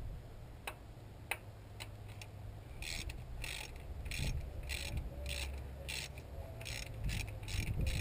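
Hand ratchet with a 10 mm socket clicking as it backs out a timing chain tensioner bolt on a Ford 5.4 L Triton engine. A few single clicks at first, then steady ratcheting from about three seconds in, about two or three clicks a second and quickening toward the end.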